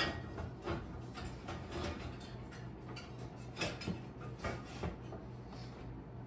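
Scattered light clicks and metal knocks of cast iron skillets and oven racks being handled, with a few sharper knocks spread through.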